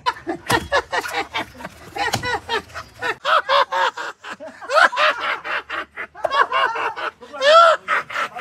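A man's voice giggling and chattering in quick, short syllables that rise and fall in pitch, with two sharp knocks in the first couple of seconds.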